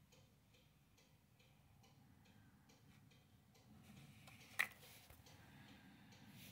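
Faint, regular ticking at about three ticks a second, which fades out after about three and a half seconds, then one sharp click about four and a half seconds in.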